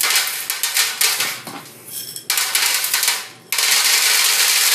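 Crackling, rustling found-sound accompaniment from a soundscape recording for a read poem. It comes as a burst thick with sharp clicks, then a shorter burst about two seconds in, then a steady rustle from about three and a half seconds on.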